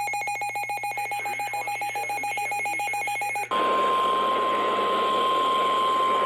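An electronic alert beep pulsing rapidly. About three and a half seconds in it cuts abruptly to a steady NOAA Weather Radio warning alarm tone, around 1 kHz, over radio hiss, the signal that a weather warning broadcast follows.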